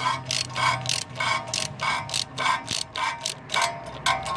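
Socket ratchet clicking in quick back-and-forth strokes, about three a second, as the spring-loaded exhaust flange bolts are tightened.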